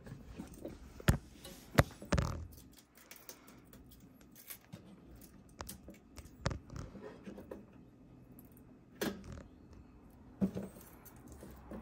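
Scattered plastic clicks, taps and rustles from handling the clear plastic lid and parts of a new Insignia portable ice maker, with a few sharper knocks in the first two seconds.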